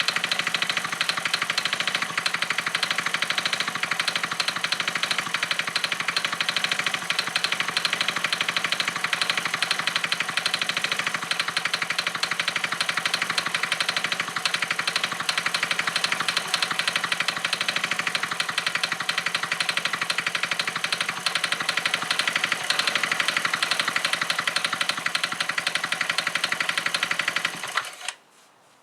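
Suzuki Vecstar 150 scooter engine idling steadily with a fast, even ticking running through it: the abnormal noise the owner is showing, cause not given. The engine cuts off near the end.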